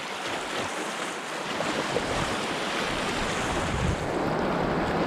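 Rushing river water and wind buffeting the microphone, a dense steady wash with low rumbles, slowly growing louder as the canoe nears a line of whitewater over a shallow ledge.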